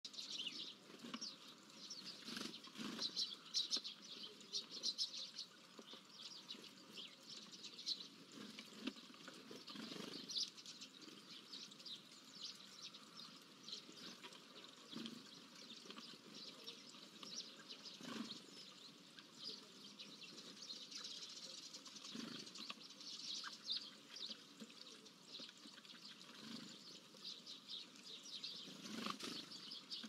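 Small songbirds chirping and twittering, a busy run of short high chirps that is thickest in the first few seconds, with faint rustles underneath.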